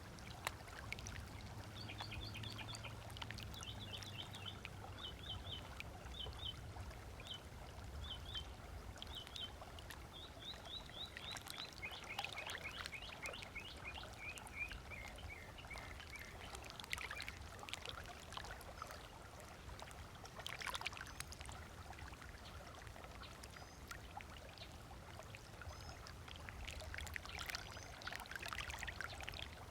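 Small waves lapping gently on a beach, with wild birds calling over them. There is a run of quick, repeated high chirps through the first ten seconds or so, then a falling series of notes, then scattered calls. A faint low hum sounds during the first few seconds.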